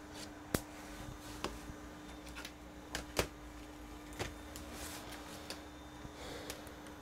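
Handling noises: a scatter of short, sharp clicks and taps, the loudest about half a second and about three seconds in, as a plastic USB BIOS chip programmer and its cable are put down on the bench. A steady low hum runs underneath.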